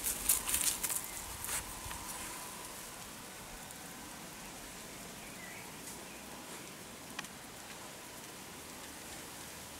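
Short crackling rustles in dry grass and brush stalks in the first second and a half, then a faint steady outdoor hiss with a single sharp click about seven seconds in.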